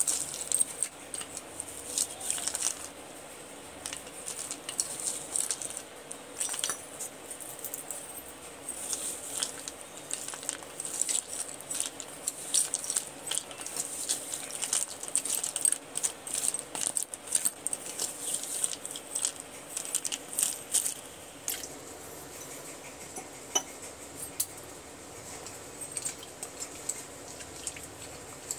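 A metal spoon stirring and scooping wet slate pencils in a coconut shell: irregular clinks and clatters of the pencil sticks knocking against each other and the spoon, growing sparser near the end.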